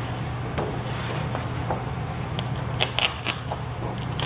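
Sheets of 12x12 scrapbook paper being handled: rustling and crackling as a sheet is flipped over and pressed flat by hand, with a cluster of sharp crackles about three seconds in, over a steady low hum.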